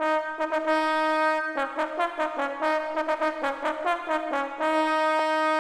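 Brass fanfare: quick repeated trumpet-like notes over held tones, closing on a long held note.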